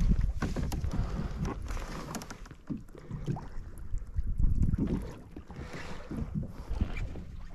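Wind buffeting the microphone on a fishing kayak at sea, with water against the hull and scattered knocks and clicks of handling on board.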